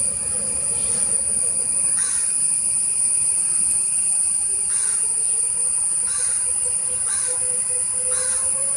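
Boeing 777's twin jet engines whining with a steady high-pitched tone, with a lower whine rising in pitch over the last few seconds as the engines spool up for take-off. Several short, harsh bird calls repeat over it, about one a second in the second half.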